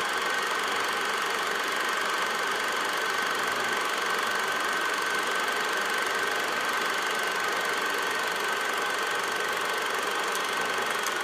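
16mm film projector running: a steady mechanical whir with a thin, high, steady tone over it.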